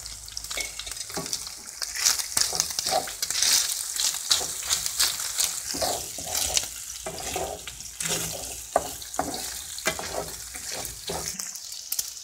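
Diced boneless chicken sizzling in hot oil in a frying pan, stirred with a wooden spoon that scrapes and knocks against the pan again and again.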